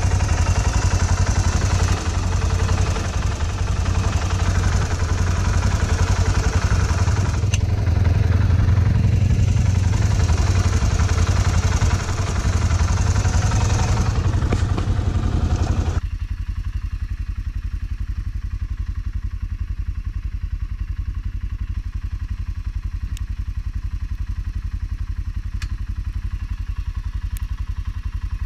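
Arctic Cat Alterra 550 XT ATV's single-cylinder engine running steadily at idle, close and loud at first, then quieter from about sixteen seconds in. A few faint clicks near the end.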